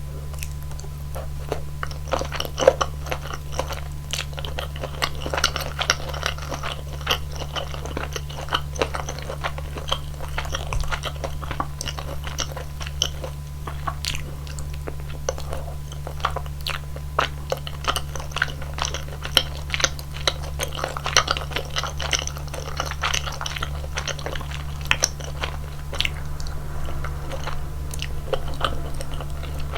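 Close-miked chewing and biting of rosé tteokbokki, a steady run of wet smacks and clicks from the mouth, over a constant low hum.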